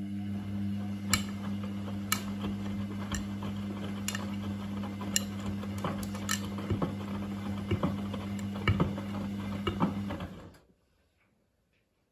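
Front-loading washing machine in its main wash: the drum motor hums steadily as the wet laundry tumbles, with sharp clicks about once a second. The motor stops about ten and a half seconds in and the drum comes to rest.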